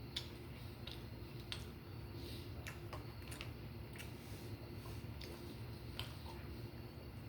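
Close-miked eating of a soft hashbrown casserole: chewing and wet mouth sounds, broken by a scattering of sharp clicks and smacks.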